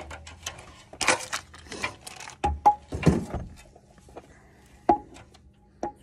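A plastic parts packet rustling and crinkling as it is opened and a small part is fished out, with a few sharp clicks of small plastic pieces.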